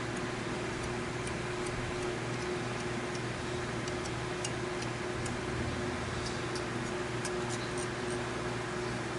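Lansky guided-rod sharpening stone stroked lightly along a knife edge: a faint, even rasp with scattered small ticks, over a steady low hum.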